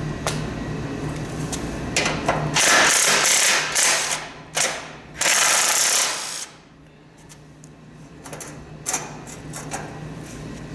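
Two bursts of rapid metallic ratcheting, each about a second and a half long, from a half-inch socket wrench turning a bolt during a snowblower teardown, with a few sharp clicks around them. A steady low hum runs underneath.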